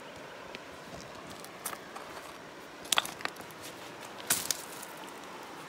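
Footsteps on loose river stones and gravel, with a few sharp clacks of rock on rock, the loudest about three and four seconds in, over the steady rush of nearby river rapids.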